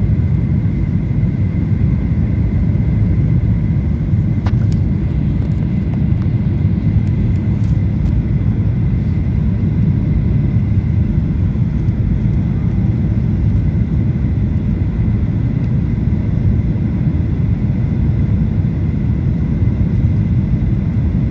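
Cabin noise inside a Boeing 737-800 on final approach: the steady deep roar of its CFM56 engines and the air rushing past the fuselage, heard from a seat over the wing, with a faint steady whine above it. A brief click about four seconds in.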